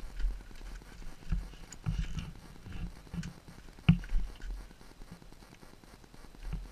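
Irregular low thumps and scuffs from a dirt bike being moved slowly on a dirt road with its engine not running, with one sharp knock about four seconds in.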